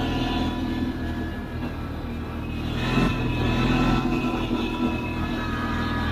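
CFMoto CForce 800 ATV's V-twin engine running, getting louder about halfway through.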